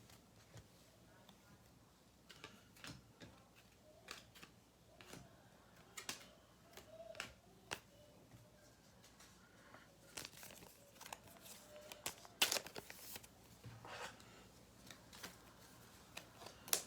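Faint rustling, light clicks and crinkling of trading cards, plastic sleeves and pack wrappers being handled, with a louder flurry of crinkling about two-thirds of the way in.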